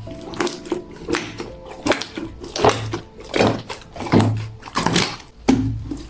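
Clear "fake water" slime with a silken-tofu texture, squished and pressed by hand in a steady rhythm. It makes about eight wet squelches, one every three-quarters of a second or so.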